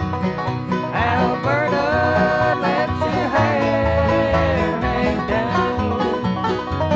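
Bluegrass band playing an instrumental passage: banjo and guitar keeping a steady rhythm over bass, with a lead instrument sliding into long held notes.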